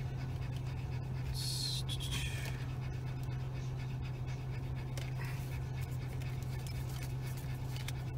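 Steady low hum inside a car, with the soft rustle and clicks of 2020 Bowman baseball cards being flipped through by hand, including a brief sliding hiss about a second and a half in.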